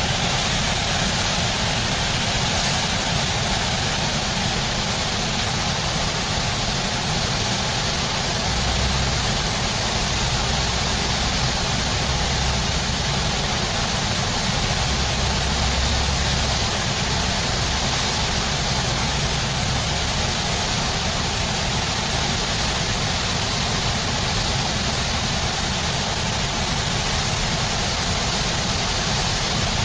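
Steady rushing roar of fast white-water river rapids, with some low rumbling near the middle.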